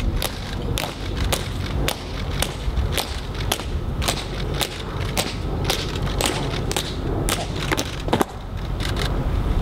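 A marching color guard's footsteps: heel taps clicking sharply in step on a stone plaza, about two a second. The steps stop a little more than a second before the end as the guard halts.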